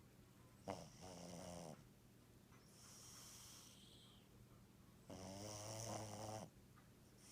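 Domestic cat snoring faintly in its sleep: two pitched snores, about a second in and again about five seconds in, with a softer hissing breath between them.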